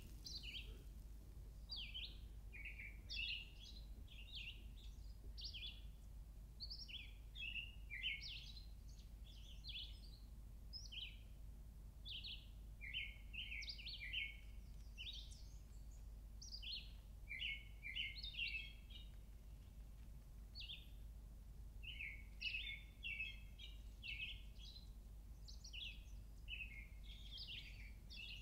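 Songbirds chirping and singing, many short high notes in quick succession, over a low steady background noise.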